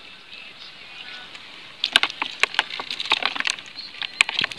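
Quiet for about two seconds, then a run of sharp, irregular clicks and taps as a speared fish is worked off the thin metal tines of a multi-pronged fishing spear held over a bucket.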